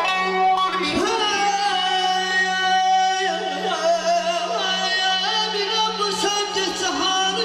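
A male vocalist sings a long, ornamented melody through a microphone and PA system, with an electric guitar accompanying him.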